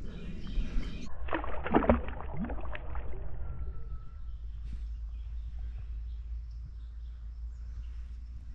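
Creek water splashing and sloshing for about two seconds, then settling into a steady low rumble.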